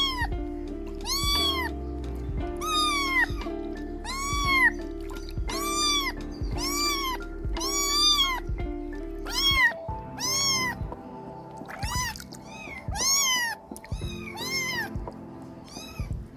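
Kittens meowing over and over, about a dozen high, arching mews at roughly one a second, over background music that drops away a little past halfway.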